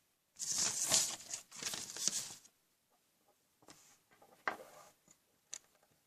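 Rustling and rattling of small plastic Lego pieces being handled, in two bursts of about a second each, followed by a few light clicks.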